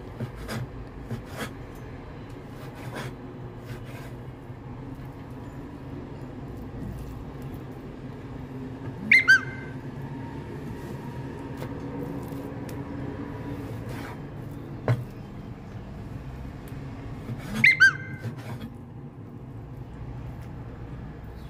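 Cleaver cutting raw chicken thighs on a wooden chopping board, with a few sharp knock-like taps of the blade on the board, over a low steady hum. Twice, about halfway through and again near the end, comes a loud, short, high-pitched double chirp.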